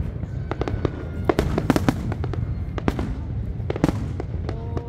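Fireworks display bursting: a rapid, irregular stream of sharp bangs over a continuous low rumble.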